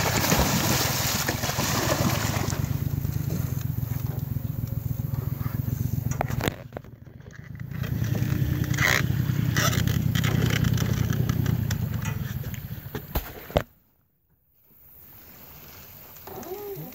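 A boat motor idling with a steady low hum, fading out briefly about six seconds in and stopping abruptly near the end. Over the first two seconds a hooked alligator gar thrashes and splashes at the surface beside the boat.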